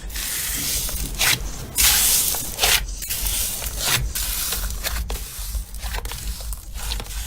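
Slime being squished and pressed by hand, a run of wet, noisy squishes of varying length.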